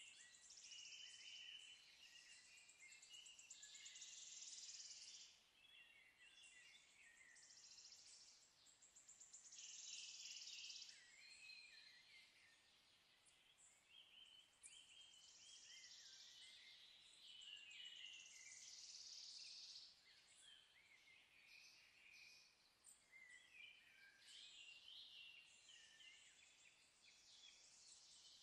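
Faint birdsong: many short, high chirps and trills overlapping throughout, over a low hiss.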